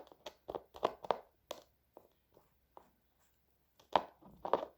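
Kinetic sand being pressed and scraped by hand into a cup mould: a string of short, irregular pats and scrapes, with two louder ones near the end.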